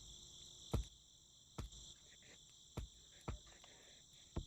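Steady high-pitched chirring of an insect chorus, with about five sharp clicks or knocks at uneven intervals standing out above it.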